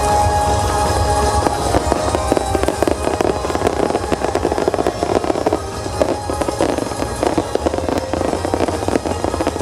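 Fireworks bursting and crackling in rapid succession, dense and continuous, with music playing along with the display.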